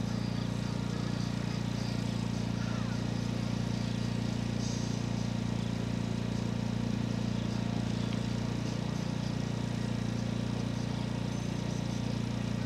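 An engine idling with a steady low hum that does not change.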